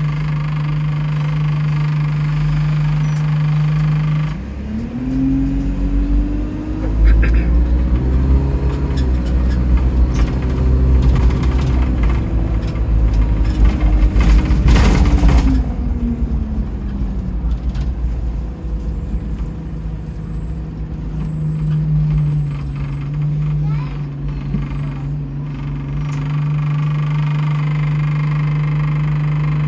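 Diesel bus engine, whose turbo is leaking, idling steadily, then revving up about four seconds in as the bus pulls away, with several steps in pitch, and running down again to idle over the second half. A short hiss of air sounds around the middle.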